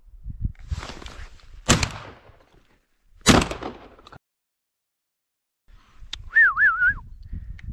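Two shotgun shots about a second and a half apart, each with a short echoing tail, the second the louder. Near the end comes a short warbling whistle.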